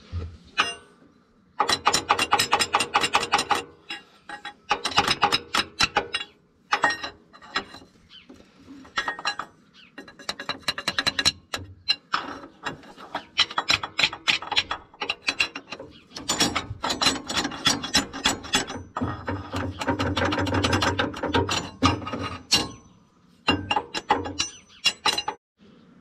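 Bursts of rapid, sharp metal-on-metal clicking and tapping from a hand tool working a new hydraulic shaft seal down into its bore on a Gehl 4625 skid steer. The seal keeps rocking and will not go in all the way.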